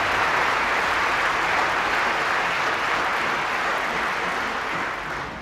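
Applause from many hands, a dense steady clapping that dies away near the end.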